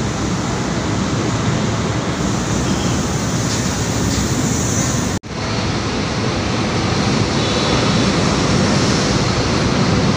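Manila LRT-1 light-rail train running along the station platform: a steady rumble and hiss of wheels on rail and traction motors. The sound cuts out for an instant about five seconds in, then carries on.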